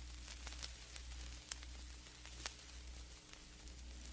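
Faint vinyl record surface crackle: scattered small clicks and pops from a stylus tracking the groove, with two sharper pops, over a low steady hum.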